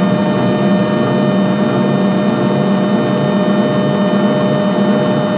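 Live electronic noise music: a steady, dense drone of many held tones over a loud low hum, with no breaks or hits.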